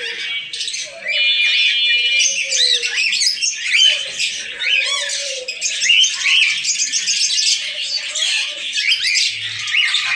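A dense chorus of many caged birds chirping and squawking at once, with short, quick rising and falling calls overlapping without a break.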